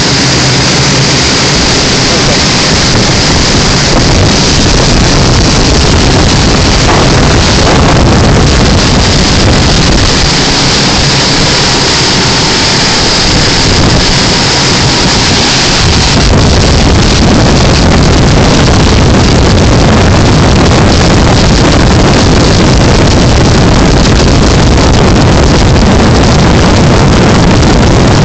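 Outboard-powered boats running fast across open water: a steady engine drone under the rush of water along the hull and wind noise on the microphone, the low end growing a little fuller about halfway through.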